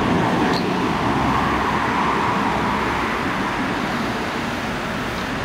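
Steady noise of road traffic, easing slightly toward the end.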